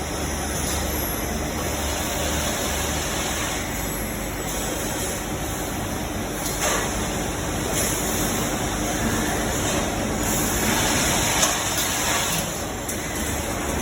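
Steady din of a CNC machining workshop, many automatic machines running at once, an even wash of noise with no distinct strokes.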